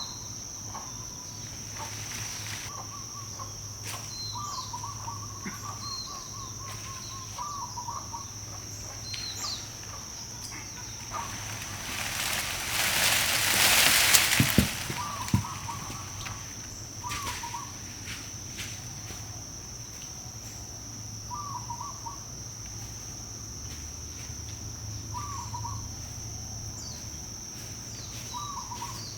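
Outdoor ambience of a bird repeating a short double call every couple of seconds over a steady high-pitched drone. About halfway through, a loud rush of noise swells up, peaks and ends with a couple of sharp knocks.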